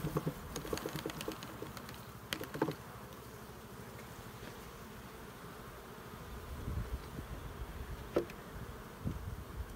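Honeybees buzzing steadily around an open hive, with a few short knocks and scrapes from wooden frames being pried and lifted out: a cluster in the first three seconds and one sharp knock about eight seconds in.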